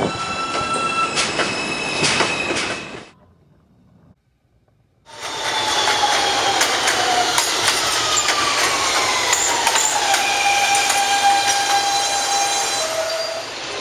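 Recorded New York City subway train sounds. The first train fades out about three seconds in. After a brief near silence, another train cuts in suddenly, its motor whine falling in pitch as it slows, then holding steady, with high squealing tones over it.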